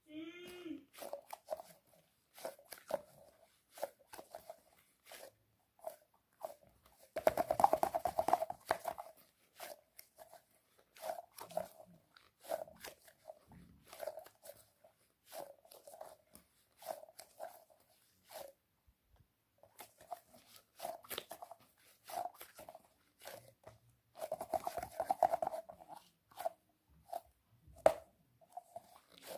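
Squishy toys being squeezed by hand: a run of short crunchy, crinkly squeezes, with two longer stretches of rapid, louder squishing, one about a quarter of the way in and one late on.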